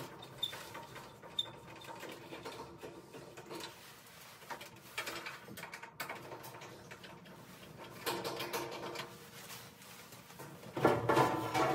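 Small clicks, scrapes and knocks of a screwdriver backing out the screws under a Viessmann boiler's front case, with the metal casing being handled; louder near the end.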